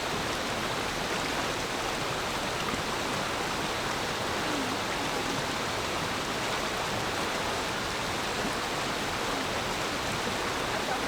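Forest stream flowing steadily over rocks, an even rushing babble of water.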